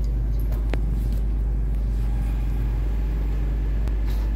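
A steady low rumbling hum, with a couple of faint clicks.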